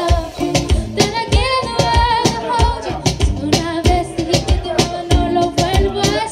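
Pop song: a female voice singing over a steady drum beat.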